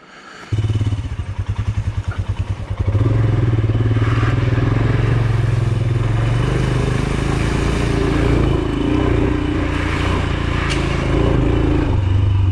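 Royal Enfield Himalayan's single-cylinder engine starting up about half a second in and idling with an even beat, then pulling away under throttle about three seconds in and running steadily as the motorcycle rides through a flooded creek crossing and on up the dirt track.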